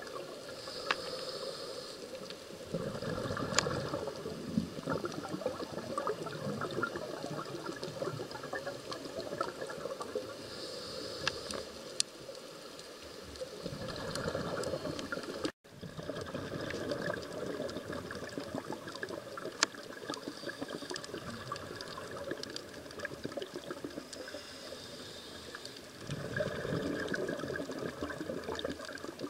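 Scuba diver breathing through a regulator underwater. Each breath is a short hiss on the inhale, then a longer burst of bubbling on the exhale, about every twelve seconds, with scattered sharp clicks in between.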